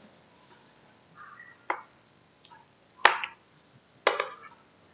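Metal spoon clinking and scraping against a ceramic plate as it cuts into a soft pudding: four short, sharp clinks, the last three about a second apart.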